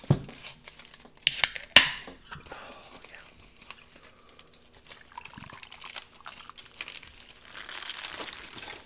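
Aluminium foil crinkling as a foil-wrapped tortilla is handled, with a few loud sharp crackles about a second and a half in. Near the end, a drink pours from a can into a glass mug.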